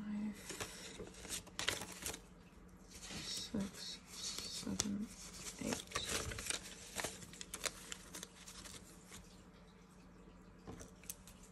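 Paper banknotes being counted and sorted by hand: crisp rustles and flicks of bills, busiest in the first several seconds and sparser afterwards.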